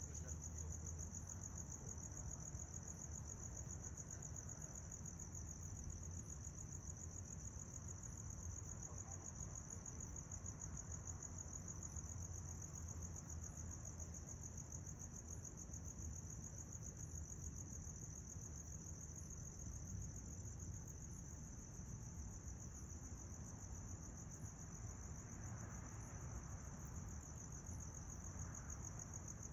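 Crickets trilling steadily at night: an unbroken, high-pitched, finely pulsing trill over a low background rumble.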